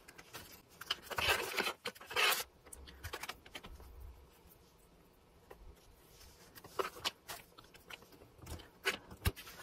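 Paper mini journal slid and turned on a cutting mat: two short rustling scrapes about a second and two seconds in, then faint clicks and soft rustles of a small metal charm and thread being handled.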